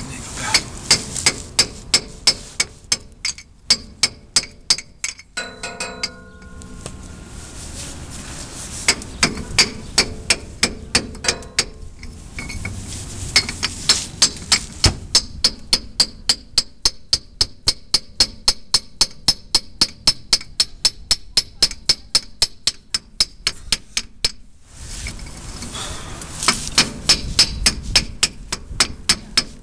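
Hammer tapping on a pipe used as a driver to press a heated 40-tooth reluctor ring onto a 700R4 transmission's tail shaft. Steady, sharp metallic taps come about three a second and break off twice briefly.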